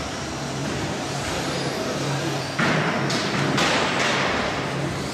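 Electric radio-controlled short-course trucks racing on an indoor track. About two and a half seconds in it gets suddenly louder, with several hissing surges of motor and tyre noise as trucks pass close by and go over the ramp, over a steady low hum.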